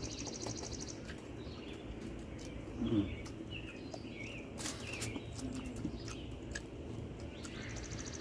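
Small birds chirping and calling outdoors, with a fast high trill near the start and scattered short chirps. A few soft clicks and a brief low murmur come about three seconds in.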